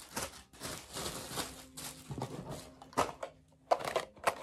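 Clear plastic bags crinkling and rustling as items are pulled out of a cardboard box, followed by a few short knocks of packages being handled near the end.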